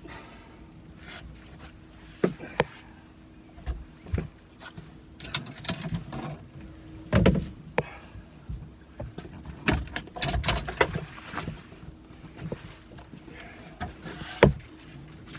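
Irregular knocks, clicks and scraping from gear being handled in a fishing boat, the loudest knocks about 7 seconds in and near the end, over a faint steady low hum.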